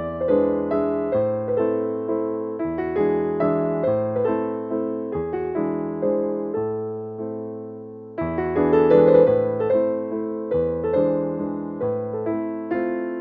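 Background piano music: a melody of struck, decaying notes over held low bass notes. It fades about eight seconds in, then picks up again.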